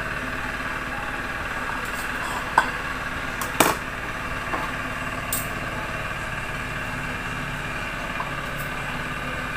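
Steady mechanical hum throughout, with a few sharp clicks and knocks of kitchen knives cutting fruit against a board and dishes, the loudest about three and a half seconds in.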